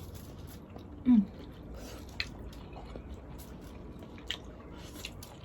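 Close-up eating sounds: chewing and wet, squishy mouth noises from eating boiled seafood, with a few sharp clicks. A brief loud, low falling hum about a second in.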